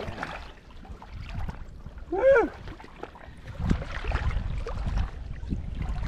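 Wind rumbling on the microphone and water sloshing in the shallows as a giant trevally is handled and lowered back in for release. A short whoop that wavers in pitch comes about two seconds in.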